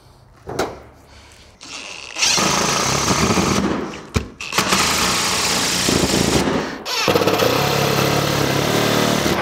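Cordless driver sinking pancake screws through metal wall flashing, three runs of about two seconds each.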